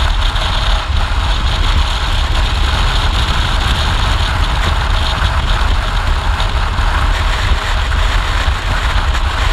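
Motorcycle cruising at a steady road speed, heard from a camera on the bike: a constant rush of wind on the microphone with a heavy low rumble, the engine and tyres running underneath it.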